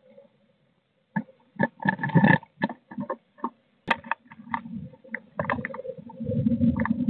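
Blue tit moving about inside a wooden nest box: an irregular series of sharp taps and scratches of its feet and bill on the wood, then a low rustling rumble from about four seconds in that grows louder near the end.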